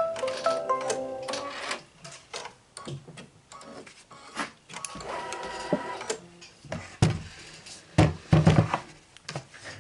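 Brother Luminaire embroidery machine giving a short run of electronic tones that step in pitch, with a second shorter set about five seconds in. In between and after come sharp knocks and rustles from a stiff gridded template sheet being picked up and handled.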